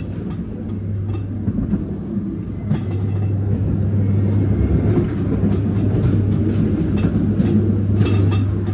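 Ghost train ride car running along its track: a steady low rumble with a constant hum underneath, and a couple of sharp knocks, one a few seconds in and one near the end.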